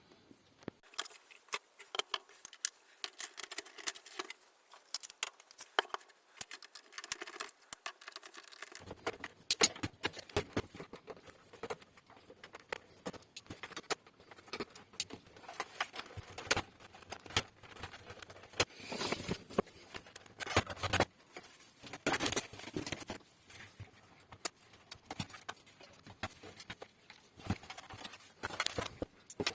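Irregular small clicks, taps and light rattles of hands handling small hardware and tools on a workbench, coming in quick clusters.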